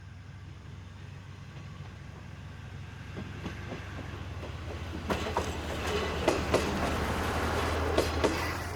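KiHa 200-series diesel railcar running past, its engine a steady low drone while the running noise builds. In the second half its wheels clack sharply several times over rail joints, and the sound eases off near the end.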